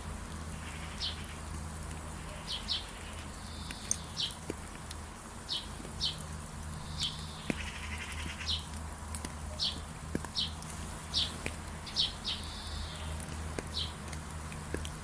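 Bird song: short, sharp descending chirps repeated about once or twice a second, with fainter warbling from other birds, over a steady low hum and a faint high hiss.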